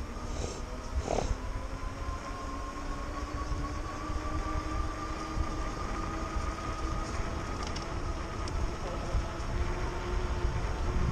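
Electric bike motor whining under power, the whine slowly rising in pitch as the bike picks up speed, over a steady low rumble of wind and road.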